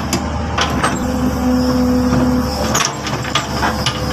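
Hitachi excavator's diesel engine running steadily, with a brief steady whine in the middle and scattered sharp knocks.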